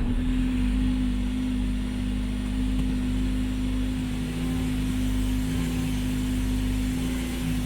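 2013 Ford C-Max Energi's gasoline engine running just after starting, with a steady humming whine over a low rumble. The owner takes the whine for a loud fuel pump.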